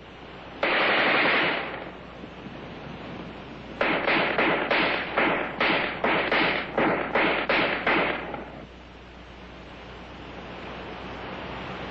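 Rifle gunfire: one sustained burst, then about ten shots in quick succession, two to three a second, each with a short echoing tail, over old film-soundtrack hiss.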